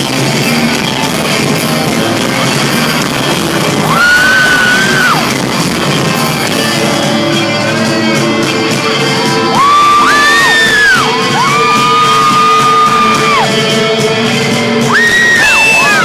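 Live rock band playing in a large hall, recorded from within the audience, with held high notes cutting through about four seconds in, again from about ten to thirteen seconds, and near the end, along with yells from the crowd.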